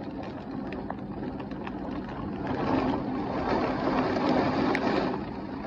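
Heavy rain pouring and wind gusting in a severe thunderstorm, the rushing noise swelling about halfway through as a gust picks up, with light ticks of drops striking.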